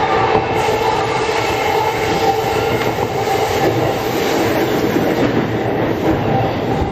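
Chūō-Sōbu Line local commuter train running, heard from inside the leading car: a steady rumble of wheels on rail with a few held tones above it.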